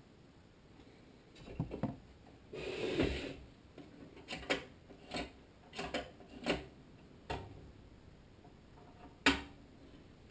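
A screwdriver and hands working on a Tecumseh HSK70 engine's sheet-metal heat box: a brief scrape about three seconds in, and a scattering of light clicks and metal taps spread over the rest of the time.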